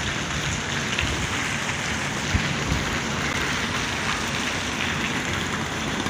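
Steady rushing noise of wind buffeting a phone microphone as it is carried along on a moving bicycle, with a low rumble and one short bump a little over two seconds in.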